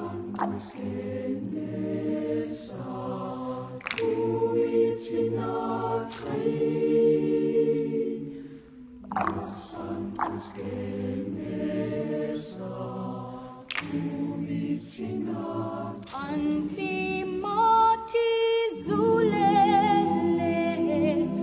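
A mixed choir of men and women singing together, with sustained held notes and several voices sounding different pitches at once.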